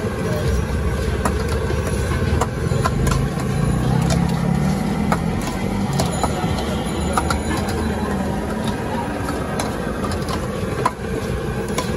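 Street traffic with a motor engine running close by, its hum swelling in the middle, and scattered light clinks and taps of kitchen utensils.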